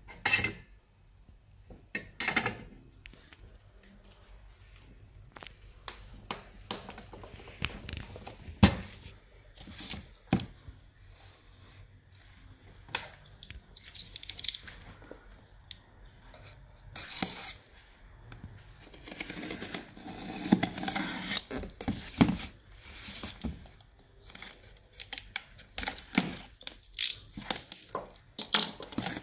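Hands handling tools, a car radio head unit and a cardboard box on a wooden workbench: scattered clicks, knocks and scrapes, with a longer stretch of rustling and scraping a little past the middle.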